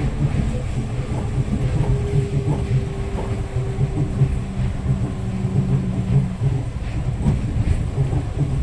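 Nippori-Toneri Liner's rubber-tyred automated guideway car running at speed on its concrete guideway, heard from inside the front car: a steady rumble of tyres and running gear, with a thin motor whine holding for a few seconds in the middle.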